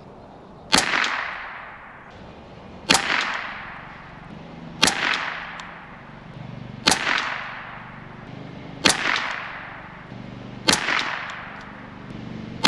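Ruger 10/22 .22 LR rifle firing seven single shots at an even pace, about two seconds apart. Each sharp crack is followed by a short fading echo.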